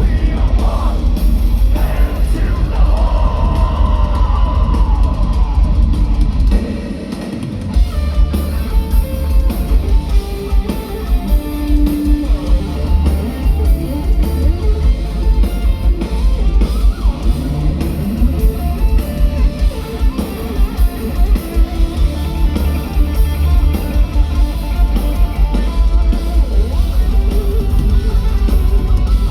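Thrash metal band playing live: distorted electric guitars over a heavy, fast drum kit, with a brief drop in the low end about seven seconds in before the full band comes back in.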